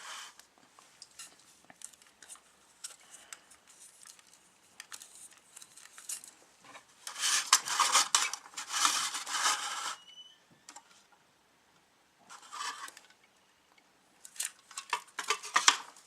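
Hands handling a plastic model kit (Gunpla): scattered clicks, rubbing and clattering of hard plastic parts. The handling is densest for a few seconds around the middle, with shorter bursts near the end.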